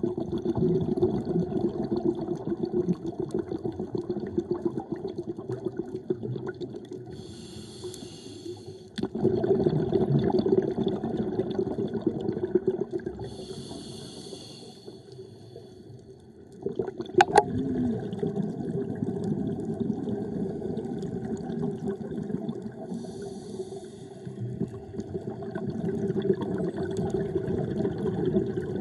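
Scuba diver breathing through a regulator underwater: long bubbling exhalations alternating with short hissing inhalations, about one breath every eight seconds. A single sharp click comes just past the middle.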